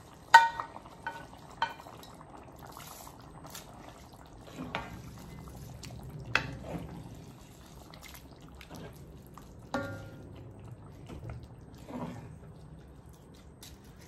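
Rice being stirred into a simmering broth in a pan: liquid bubbling and sloshing, with a spoon knocking against the pan several times, the loudest knock just after the start with a short ring.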